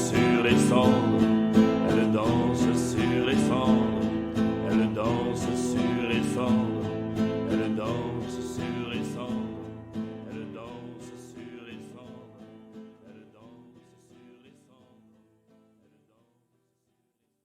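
Instrumental ending of a song: plucked-string backing music, fading out steadily to silence about fifteen seconds in.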